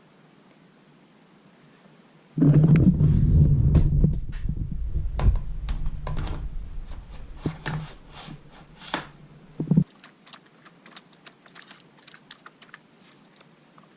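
Clattering of tools and bike parts being handled, with a deep rumble for several seconds that cuts off sharply, followed by light, irregular clicking.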